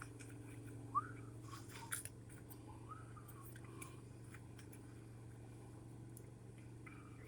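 Faint steady low hum, with a sharp click about a second in, another click near two seconds, and a few faint short squeaks.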